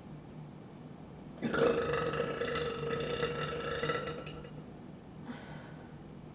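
A woman's long burp, starting about a second and a half in and held at a steady pitch for about three seconds.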